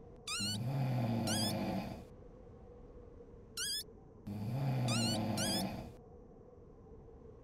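Cartoon snoring sound effect: two long rattling snores a few seconds apart. High whistles slide up and down during the first snore, and a short whistle comes between the two.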